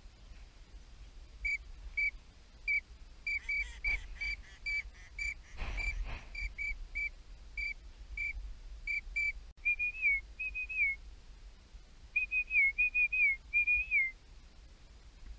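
Wigeon-style duck whistling: a run of short, high whistled notes, then longer whistles that rise and drop away at the end. A rustle or thump comes about six seconds in.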